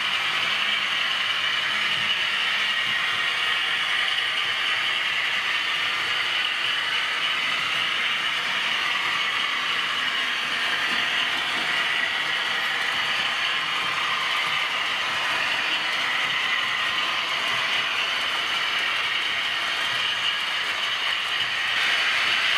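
Model V200 diesel locomotive running on a model railway layout: a steady, even mechanical running noise, mostly in the middle and upper range with little bass.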